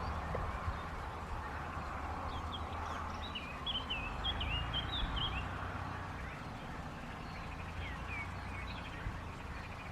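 River water flowing steadily, with small birds chirping over it: a quick run of chirps from about three to five seconds in, then a few scattered calls.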